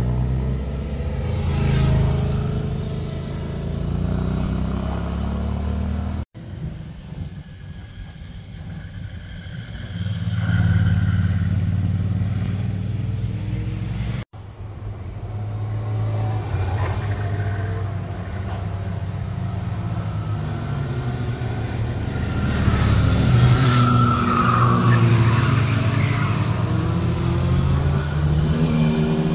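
Sport motorcycles passing one after another through a hairpin bend, their engines rising and falling in pitch as they roll off and accelerate out of the curve. The sound breaks off abruptly twice between passes.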